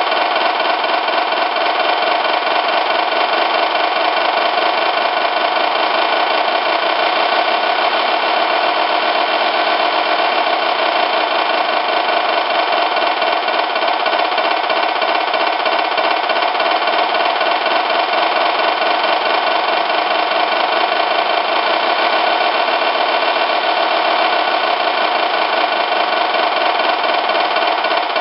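Electronic RC sound unit playing a simulated Land Rover TD5 five-cylinder diesel engine through a small 2 W speaker in a baffle box. It runs steadily with an even engine note and no deep bass.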